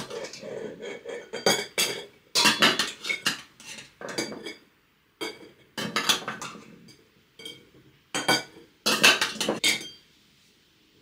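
Kitchen utensils and glass canning jars clinking and knocking as the jars are packed with diced yellow beet. The clinks come in irregular clusters with short pauses, quietest just before the end.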